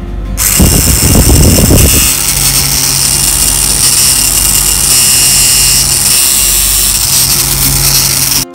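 Small brushed DC motor driving a plastic fan through plastic gears, running at full speed with a loud, steady whir and hiss. It starts a moment in, with air buffeting for the first second or so, then runs evenly until it cuts off near the end.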